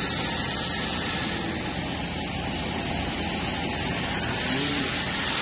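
Fourstar FD-2860 five-axis CNC bridge machining center running with a steady hissing mechanical noise, the hiss growing louder and brighter near the end.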